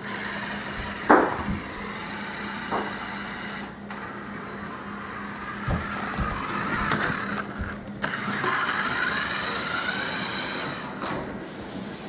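Small electric motor of a toy remote-control buggy whirring and whining as it drives over a hardwood floor, its pitch rising and falling with speed. There is a sharp knock about a second in.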